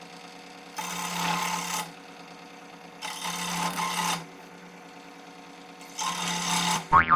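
Band saw motor running steadily as three short pieces of dowel are cut, each cut a noisy rasp of about a second. Near the end comes a loud, wobbling cartoon 'boing' sound effect.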